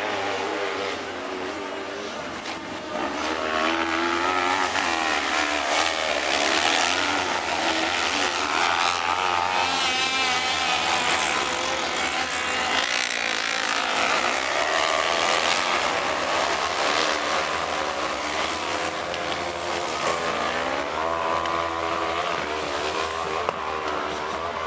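Several 500 cc kart cross buggies racing on a dirt track, their engines revving up and down through the gears as the pack passes. The engines get louder about three seconds in and stay loud from then on.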